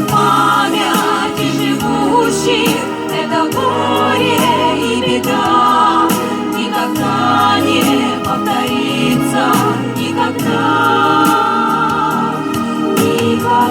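Vocal ensemble singing in harmony, with long held notes sung with vibrato.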